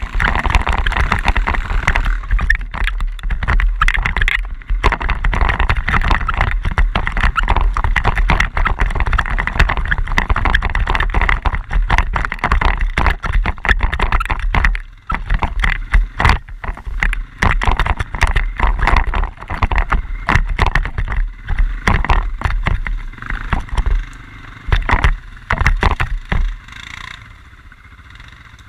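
Quad bike (ATV) being ridden, its engine running under a heavy low rumble with irregular crackles; it gets quieter in the last few seconds.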